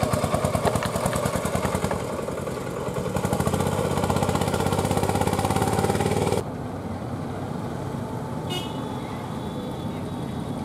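Auto rickshaw's small engine running hard under a heavy load with a fast, even firing beat. It cuts off abruptly about six seconds in, leaving fainter traffic engine noise and a short vehicle horn toot.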